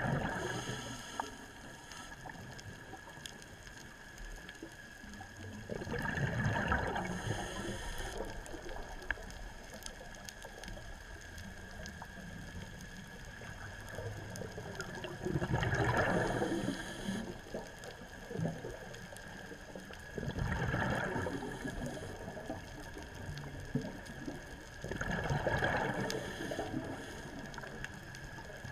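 Scuba diver breathing underwater through a regulator: about five rushes of exhaled bubbles, a few seconds apart, over a faint steady hum.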